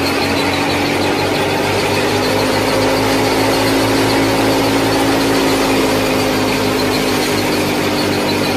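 Small motor of a miniature DIY tractor-and-thresher model running steadily, a continuous whine that holds an even pitch.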